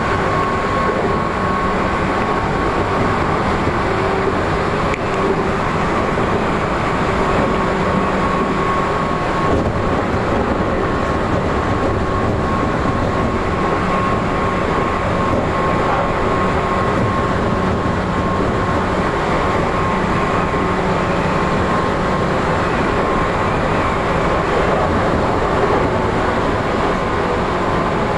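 Tokyu 8500 series electric train running at a steady speed, heard from the leading car: the traction motors give a loud steady whine of held tones over a continuous rumble of wheels on rail.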